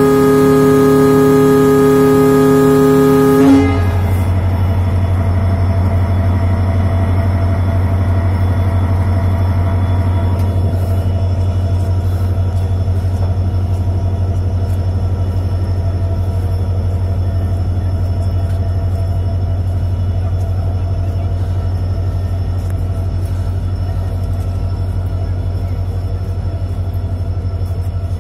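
Air horn of a WDP4D diesel-electric locomotive sounding one long steady note that cuts off about three and a half seconds in. Then the departing train runs on with a steady low drone and the rumble of coaches rolling past, slowly fading.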